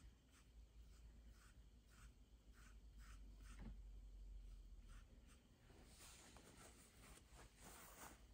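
Faint short strokes of a paintbrush scrubbing and dabbing paint onto the painting, a dozen or so in a row, with longer rubbing strokes near the end, as light paint is brushed into the shirt collar.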